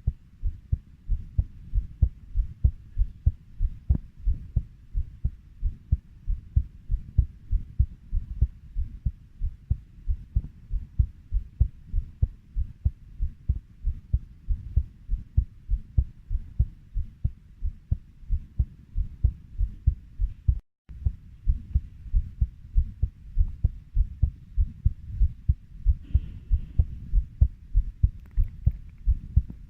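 Heartbeat, a steady lub-dub of low thumps at about 90 beats a minute, broken once by a very short gap about two-thirds of the way through.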